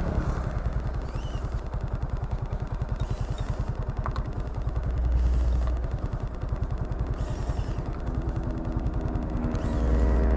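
Motorcycle engine running as the bike is ridden, an even low pulsing. Near the end the engine note becomes clearer and starts to rise as it picks up revs.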